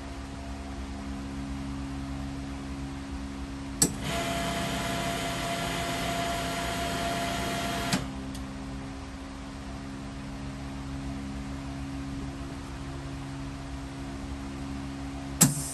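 Alpha Vac vacuum machine humming steadily. About four seconds in, a click starts a hiss of air with a steady whine that lasts about four seconds and ends with another click. The hum then runs on until a further click near the end. This is the machine's pulsed vacuum cycle: vacuum for about 4 seconds, then stop for about 7.5 seconds.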